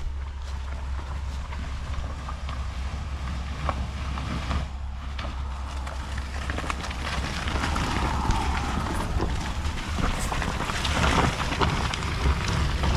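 Off-road Jeep running at low speed, a steady low rumble with scattered knocks and rattles, growing somewhat louder in the second half.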